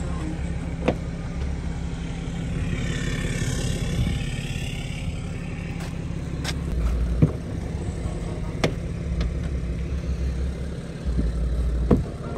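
A BMW E60's doors being worked: a string of sharp latch clicks and knocks from the doors and handles, the loudest about seven and twelve seconds in, over wind rumbling on the microphone. A whooshing swell comes and goes about three to five seconds in.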